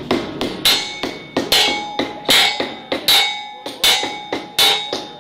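Steady hammer blows on steel: a heavy blow about every three-quarters of a second with lighter taps between, each blow leaving a metallic ring.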